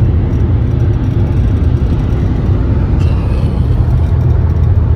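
Steady low rumble of a car driving at highway speed, engine and tyre-on-road noise heard from inside the cabin.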